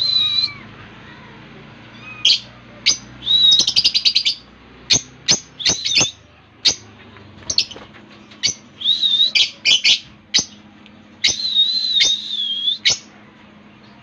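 Peach-faced lovebirds chirping: many short, shrill calls, some in quick chattering runs.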